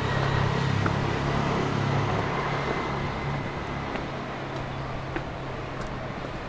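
A car engine running close by, a low hum loudest in the first couple of seconds and then slowly fading away, over steady street noise.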